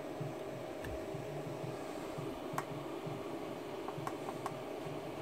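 Steady low electrical hum and hiss from the running bench power supply and charger, with a faint steady whine. A few light clicks come through it, a small cluster near the end, as the charger's front-panel buttons are pressed.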